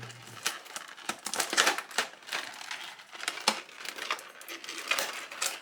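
Clear plastic blister packaging of a boxed figure being handled and pried apart, giving off irregular crinkles and sharp plastic clicks.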